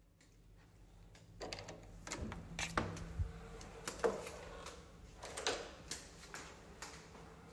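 Irregular light clicks and knocks: a door's handle and latch working as the door opens, then footsteps and handling knocks on a hard floor.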